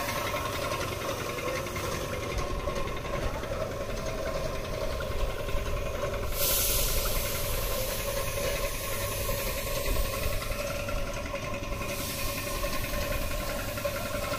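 Piston air compressor running steadily, with the hiss of a paint spray gun spraying that starts suddenly about six seconds in and stops about six seconds later.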